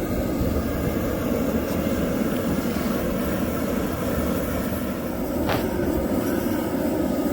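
Forge running with a steady rushing noise while the knife blade heats in it, with one brief high squeak about five and a half seconds in.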